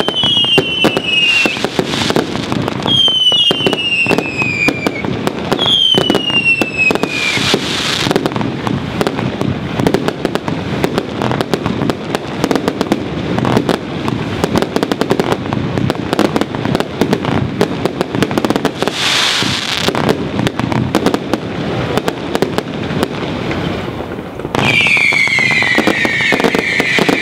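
Fireworks finale: a continuous barrage of rapid bangs and crackling. Descending whistles come at the start and about three and six seconds in, and a louder burst of many whistles follows near the end.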